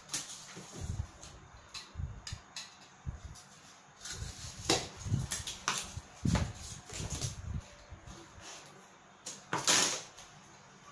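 Corrugated cardboard being handled and trimmed by hand on a work table: irregular rustles, scrapes and light knocks of cardboard pieces being moved, cut and set down. The loudest scrape comes near the end.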